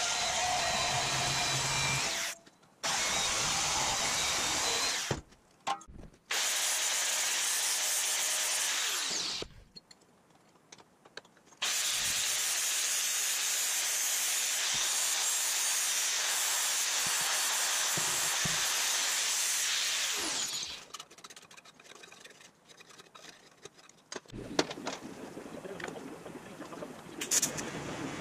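A vertical metal-cutting bandsaw cutting through a metal plate in several stretches, then an angle grinder grinding steel, each running steadily and stopping abruptly. Near the end comes the quieter steady hiss of a TIG welding arc.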